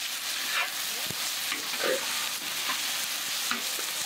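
Chopped beef and fried onions sizzling in a large wok while being stirred with a metal spatula, the spatula scraping the pan in irregular strokes. There is a single knock about a second in.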